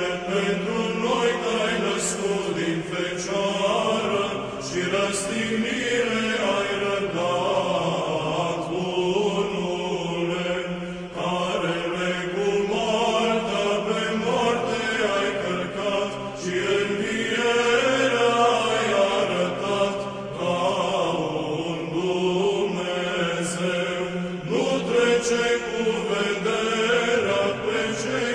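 Orthodox liturgical chant in the Byzantine style: a slowly moving sung melody over a steady held drone (ison).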